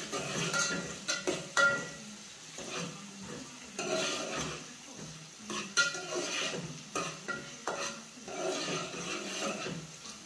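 Metal spoon stirring sliced onions frying in oil in an aluminium pot: irregular scrapes against the pot with a few sharp clinks, over the sizzle of the frying onions.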